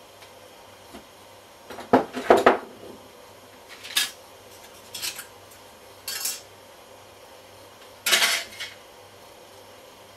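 Small metal tools and parts clinking and clattering as they are handled and set down on a workbench, in about five short bouts; the loudest come about two seconds in and near the end.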